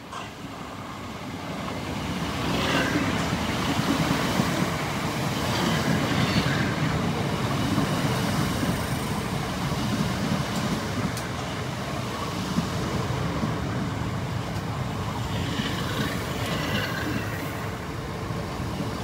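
Class 465/466 Networker electric multiple unit drawing into the platform and slowing, its wheels and motors growing louder as it nears and then running on steadily. Brief high squeals come about three seconds in and again near the end.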